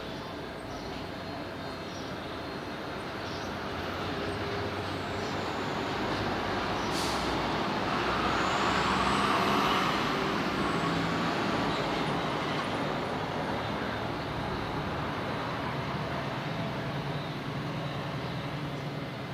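Street traffic on a city avenue, with one vehicle swelling past, loudest about nine to ten seconds in. A short hiss comes about seven seconds in.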